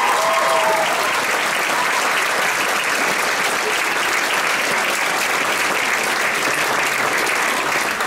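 Theatre audience applauding loudly at the end of a sung number, the cast's held final note cutting off about a second in.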